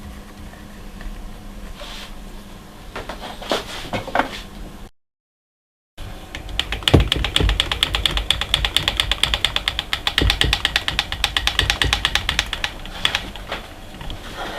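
A fast, even run of small mechanical clicks, about eight a second, lasting several seconds, from hand work on a Proxxon MF70 micro milling machine. Before it comes a low steady hum with a few scattered clicks, then about a second of dead silence.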